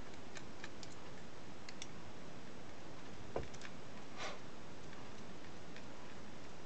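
Small scattered clicks and ticks of a screwdriver working small self-tapping screws out of a plastic electric shaver housing, with one sharper knock about three and a half seconds in and a brief scrape just after, over a steady background hiss.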